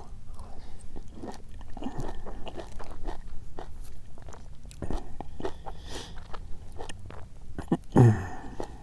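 A person chewing and biting food close to the microphone, with many short wet clicks of the mouth. A brief voiced sound comes near the end.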